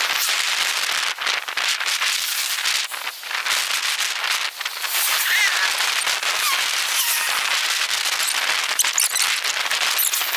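Heavy rain falling close by: a dense crackle of countless drops with a loud hiss. It cuts off suddenly at the end.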